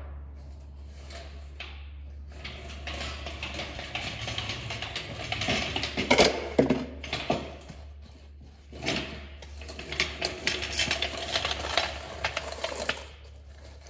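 Metal hand tools clinking and clattering in irregular runs of small knocks over a steady low hum, loudest about six seconds in and again near the end: tools being handled while a 12 mm socket is sought.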